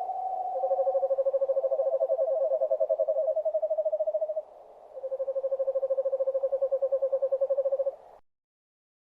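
Owl calling in long, rapid, even trills on a steady pitch, two trills overlapping at slightly different pitches before a short break and a third trill. The sound cuts off abruptly near the end.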